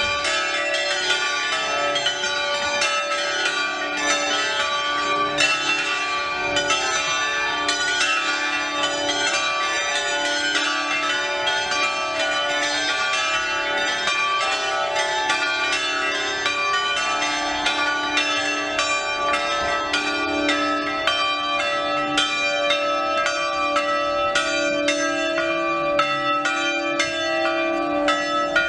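Five swinging church bells cast by the De Poli foundry, tuned D4, E4, F#4, G4 and A4 and hung for falling-clapper ringing, sounding together in a dense, continuous peal of overlapping strikes: a festive ringing.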